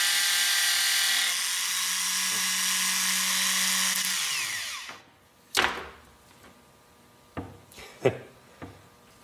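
Small gear-reduction car starter motor, clamped in a vise and fed from a 12 V battery through jumper cables, running with a steady high whine and then winding down to a stop about four to five seconds in. It draws enough current to make the jumper cables hot. A knock and a few light clicks follow.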